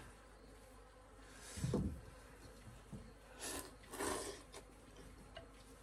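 Noodles being slurped from a bowl: two short slurps about three and a half and four seconds in, after a soft low bump about a second and a half in.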